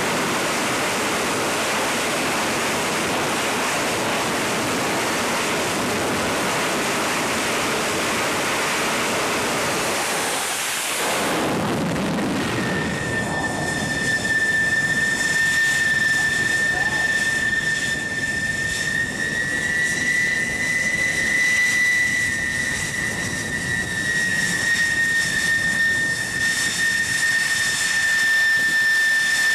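F-14 Tomcat jet engines on a carrier flight deck: a loud, even rushing roar for about the first eleven seconds, then a steady high-pitched turbine whine with overtones as a Tomcat's engines hold at full power on the catapult.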